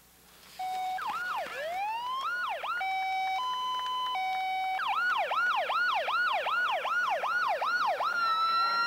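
Electronic siren cycling through its modes: a short steady tone about half a second in, a slow rising and falling wail, a two-tone hi-lo alternation, then a fast yelp of about two and a half sweeps a second, settling into a steady high tone near the end.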